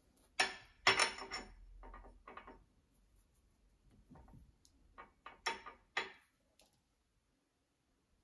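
Light clinks and knocks of a paintbrush against a glass water jar and a plastic watercolour palette on a glass desktop, as the brush is rinsed and loaded with paint. They come in two clusters, one near the start and one around the middle.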